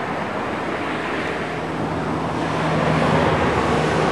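Steady rushing noise with a low hum beneath it, swelling a little toward the end.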